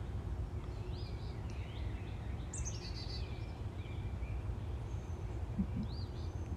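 Faint birds chirping a few times over a steady low hum.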